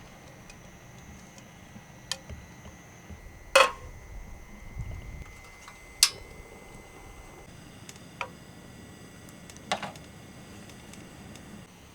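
Occasional sharp clinks and knocks of camp cookware and utensils, about five spread out, over a faint steady background.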